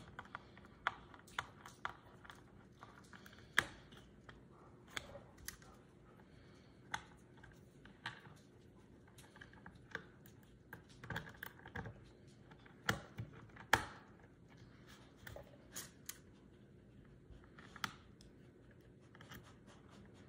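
Small screwdriver driving screws back into the plastic housing of a Cra-z-Art spin art machine: faint, irregular clicks, ticks and scrapes of the tool on screws and plastic, with a few louder knocks about two-thirds of the way in.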